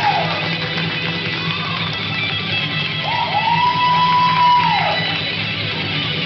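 Metal music with guitars over a steady low drone; about three seconds in, a long high note rises, holds for about a second and a half, then falls away.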